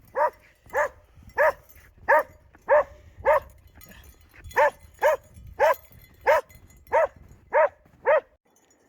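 Border collie barking repeatedly in play: about thirteen short, sharp barks, roughly two a second, with a pause of about a second near the middle.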